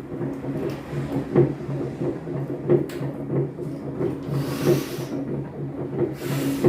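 Samsung front-loading washing machine starting its spin cycle: the drum knocks regularly, about one and a half times a second, over a steady motor hum, with two short rushes of hiss. The knocking is the drum banging as it turns, which the repairer puts down to a probably broken spider (the three-armed rear drum support).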